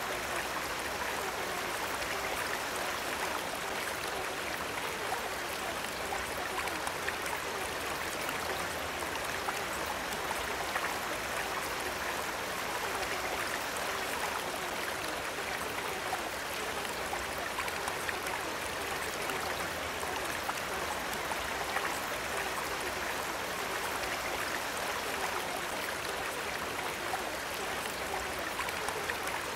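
Recorded water sounds: a steady, even rush of running water, like a flowing stream.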